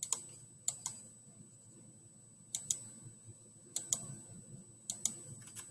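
Computer mouse buttons clicking: about ten sharp clicks, mostly in quick pairs a fraction of a second apart, spread through several seconds, as lines are selected and trimmed in a drawing program.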